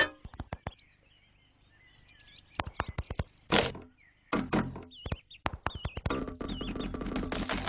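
Cartoon sound effects: a string of sharp knocks and thunks, then a few small squeaky chirps, then a rushing noise that swells near the end.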